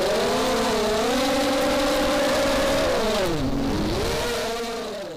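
FPV quadcopter's brushless motors and 5-inch props whining, the pitch rising and falling with the throttle as it manoeuvres, dropping low for a moment about three and a half seconds in before climbing again. The sound fades out near the end.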